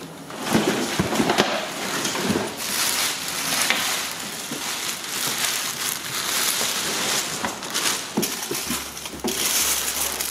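Clear plastic wrapping crinkling and rustling as a plastic ride-on toy car is lifted and handled in its cardboard box, with a few knocks of the plastic body against the box.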